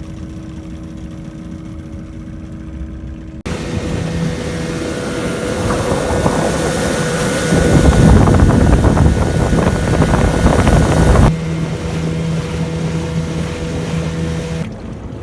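A motorboat's engine runs steadily with a hum while the boat is underway, and wind buffets the microphone. The wind is loudest in the middle. The sound changes abruptly a few times.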